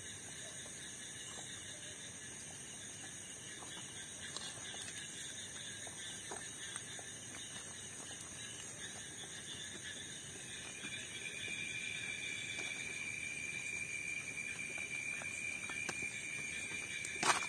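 Night insects, crickets among them, trilling steadily in several high bands. About ten seconds in, a louder single-pitched trill joins, and a brief sharp knock sounds near the end.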